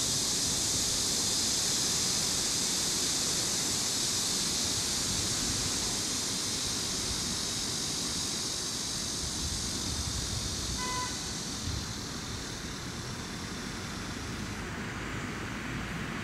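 Steady outdoor ambience: a low rumble of wind and distant traffic under a high, even hiss that fades away in the last few seconds, with one short pitched beep about eleven seconds in.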